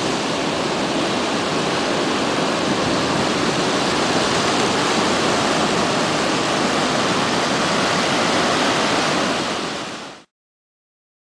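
Pacific Ocean surf breaking and washing up a sandy beach: a steady rush of noise that fades out near the end.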